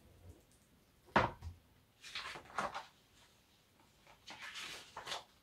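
A large hardcover picture book being handled and opened: a sharp knock about a second in, then soft paper rustling as the cover and first pages are turned.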